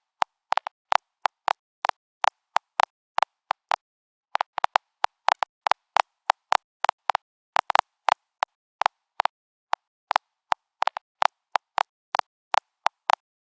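Geiger counter clicking irregularly, a few sharp clicks a second in an uneven random pattern, each click a detected radiation count.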